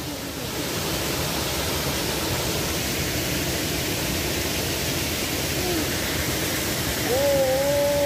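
Steady rush of a small waterfall pouring into a rocky pool. Near the end a person's drawn-out, wavering call rises over the water noise.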